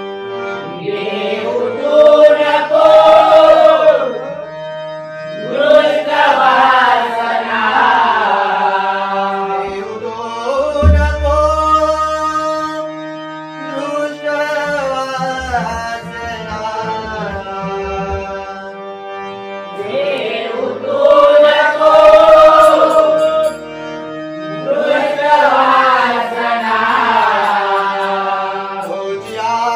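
Devotional bhajan: a harmonium holds steady chords while a group of men sing in chorus, in phrases that swell and fall back every few seconds. A hand drum beats underneath, most clearly in the quieter stretch in the middle.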